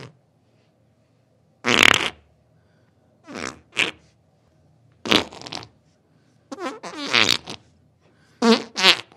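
A series of farts from an upset stomach: about eight short bursts coming roughly every second or so, often in quick pairs, some airy and some sputtering with a wavering pitch.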